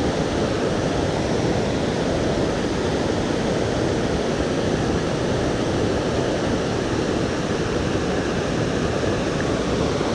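Water pouring over a dam's man-made waterfall, a steady, even rushing noise.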